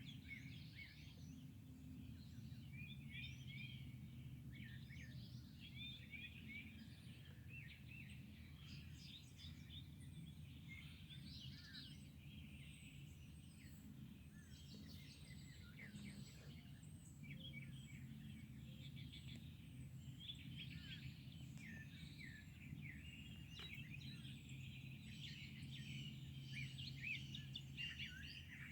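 Faint early-morning chorus of small birds, many chirps and short trills overlapping, with a repeated thin high note through the middle, over a steady low hum.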